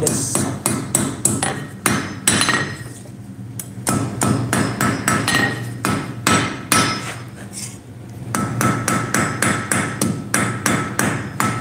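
Hand hammer striking hot iron on a steel anvil: quick runs of light, ringing blows, about three or four a second, with two short pauses between the runs.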